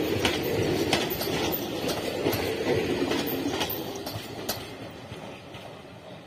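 Indian Railways passenger coaches running past at speed: a dense rumble with sharp clicks of the wheels over rail joints. The sound fades from about four seconds in as the last coach moves away down the track.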